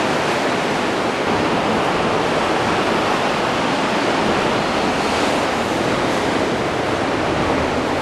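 Sea waves surging against the rocks of a sea cave: a steady rushing wash of water.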